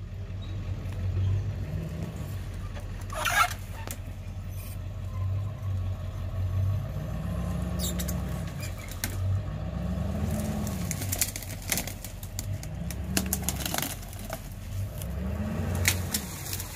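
A vehicle engine running with a low hum, rising and falling in pitch four times in the second half as it revs while moving the truck. Scattered crackles, with a sharp snap about three seconds in.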